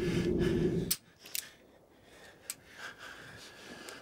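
A man's low growl, held for about the first second and then cut off, followed by quiet with a couple of faint clicks.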